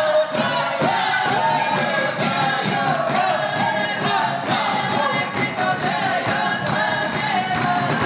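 Russian folk ensemble singing a South Russian karagod (round-dance) song, many voices together in full voice, with short sharp knocks scattered through the singing.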